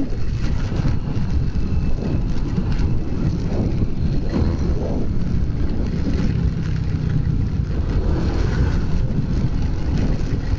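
Steady rumble of wind and road noise from a moving motorcycle riding through heavy rain.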